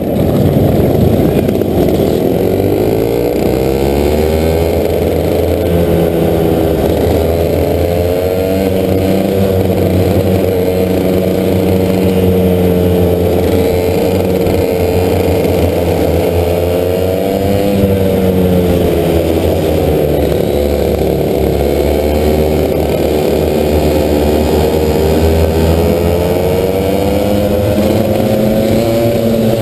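Racing kart engine heard from on board, pulling away and then running hard, its revs rising and falling again and again as it laps among other karts. The sound is muffled, with little above the low engine note.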